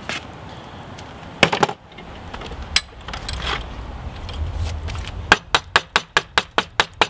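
Wood-and-metal handling knocks at a bench vise as the wooden handle block is loosened and lifted out: a few scattered knocks, then near the end a quick run of about a dozen sharp taps, roughly six a second.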